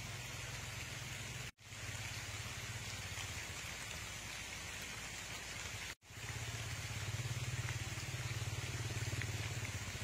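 Steady hiss of rain falling on orchard foliage, with a low steady rumble underneath; the sound cuts out for an instant twice, at about 1.5 and 6 seconds in.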